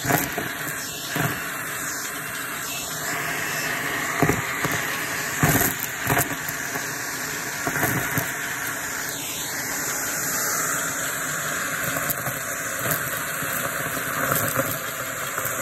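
Shark vacuum cleaner running with a steady airy hiss, with crunchy debris clicking and crackling as it is sucked up, in several sharp pops spread through the run.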